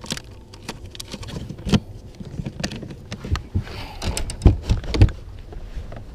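Fishing tackle being rummaged through in a boat's side storage compartment: a run of clicks, knocks and rustling of packages, with a few heavier thumps about two seconds in and near the end.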